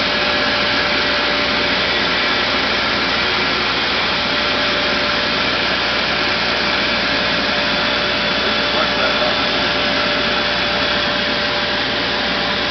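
Timesaver metal finishing machine running steadily while its conveyor carries a steel plate through: an even whirring noise with one steady tone running through it.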